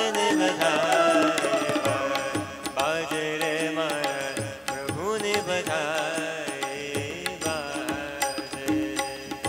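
Indian devotional music played live on an electronic keyboard, a bamboo flute and hand drums. The melody glides and wavers over steady drum strokes.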